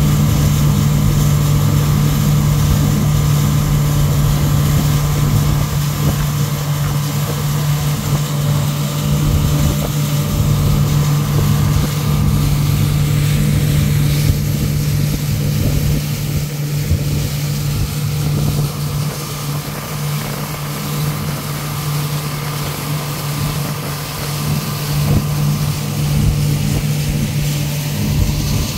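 Pontoon boat's motor running at a steady cruise, a constant low drone, over a continuous hiss of water rushing and splashing along the hull and wind across the microphone.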